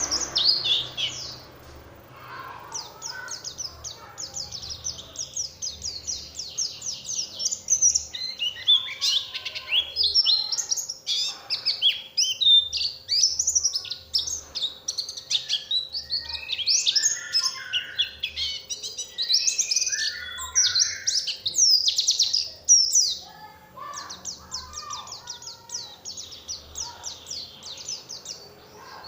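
White-eye (pleci) singing a long, fast twittering song of high chirps and rapid trills, with short lulls about two seconds in and near the end.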